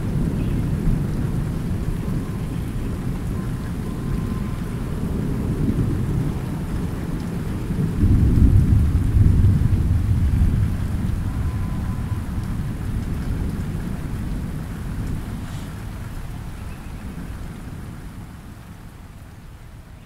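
Rain falling steadily under a low rolling rumble of thunder that swells sharply about eight seconds in and then slowly dies away.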